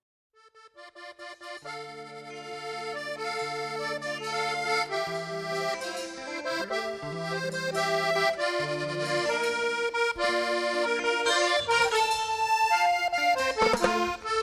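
Accordion music: after a moment of silence, an accordion starts a melody of held notes over a bass line, growing louder as the song gets going.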